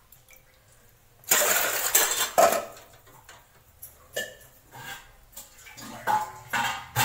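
Soaked chickpeas tipped into a steel pressure cooker, rattling against the metal for about a second after a short quiet start, followed by a few scattered knocks of metal pots.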